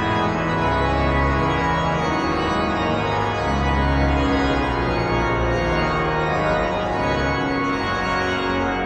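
Pipe organ music: sustained chords over deep bass notes, beginning to fade out near the end.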